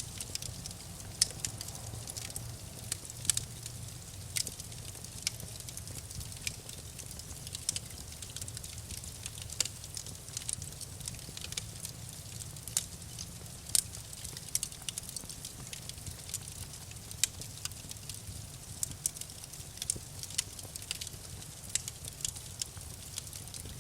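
Wood fire crackling, with frequent irregular sharp pops and snaps over a steady low rumble of the flames.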